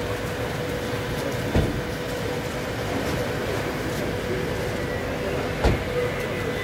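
Steady street background noise, a low rumble with a faint steady hum. It is broken twice by a short thump, about four seconds apart.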